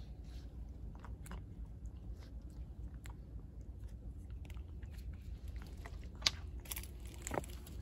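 Calico cat chewing and crunching dry cat food kibble from a dish: irregular crisp crunches and clicks, with one louder crunch about six seconds in.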